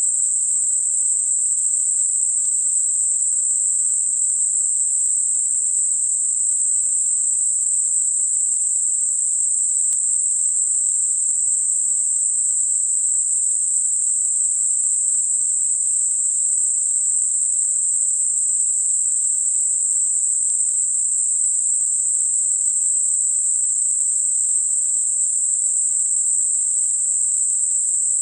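Steady, high-pitched hiss of electronically generated narrow-band noise centred on 8 kHz: a tinnitus masker with a smooth Gaussian roll-off either side, unchanging throughout and with nothing in the lower range.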